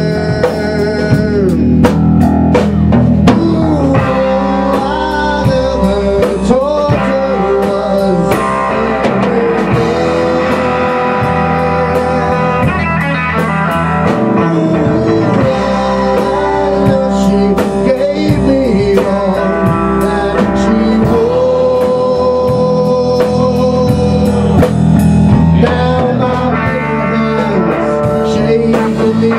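A live rock band playing together: electric guitar, bass guitar and a Tama drum kit. Long held notes that bend in pitch ride over the bass line and steady drum and cymbal hits.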